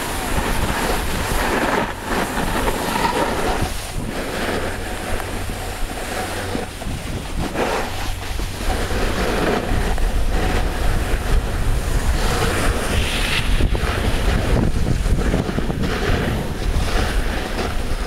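Wind buffeting the camera's microphone: a loud, steady rumbling rush.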